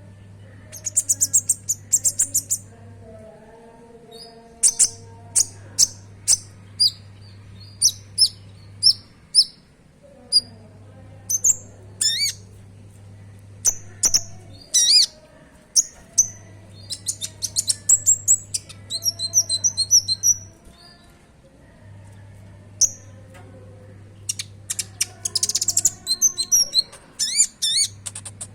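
Olive-backed sunbird (konin) singing in bursts of sharp, high chirps and fast trills, its song filled with mimicked sogon (spiderhunter) phrases. A low steady hum switches on and off every few seconds underneath.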